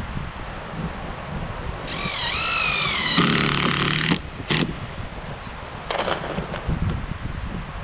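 Power drill run in a couple of short pulls, its motor pitch bending up and down as it loads, typical of driving screws into lumber; wind noise on the microphone around it.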